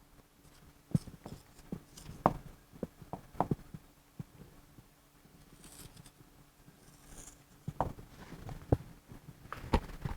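Irregular short taps and light scratches of a pen or marker writing, in two clusters with a pause between them.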